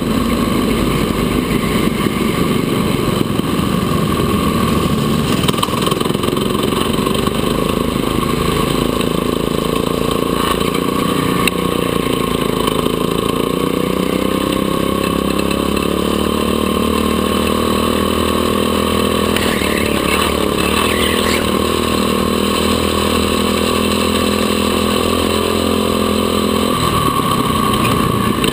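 Go-kart engine running hard on track, its pitch rising and falling with the throttle through the corners. From about halfway it holds a steadier, higher note, then its low note drops away near the end.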